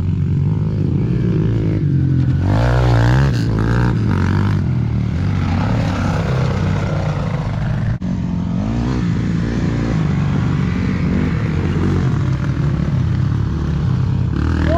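Four-stroke dirt bike engine running under load while being ridden, revving up and down several times.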